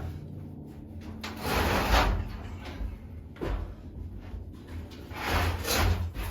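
A broom sweeping a workshop floor: three rough scraping strokes, the first and last about a second long, over a low steady hum.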